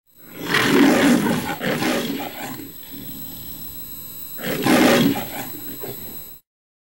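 Lion roaring from the MGM studio logo: a long roar, a quieter rumbling stretch, then a second roar about four and a half seconds in. It cuts off abruptly near the end.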